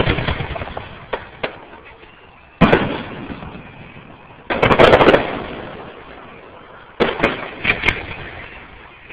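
Aerial fireworks shells bursting: four booms a little over two seconds apart, each fading away slowly, the loudest about halfway through. The last is followed by a quick run of small crackling reports.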